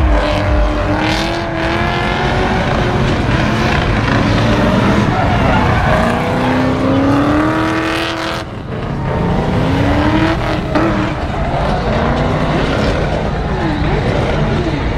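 Car engine revving hard during a drift, its pitch climbing and falling again and again, with tyres spinning and squealing on the tarmac. The revs drop off briefly a little past halfway, then climb again.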